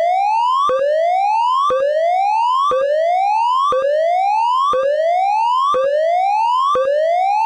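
Electronic fire alarm tone sounding as a test: a rising sweep in pitch that jumps back down and starts again about once a second, with a click at each restart.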